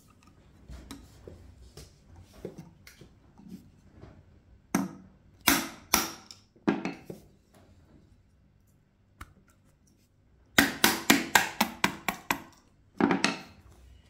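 A screwdriver knocks against the brass primer from inside a plastic 16-gauge shotgun shell to drive the primer out. A few sharp separate knocks are followed near the end by a quick run of about ten knocks.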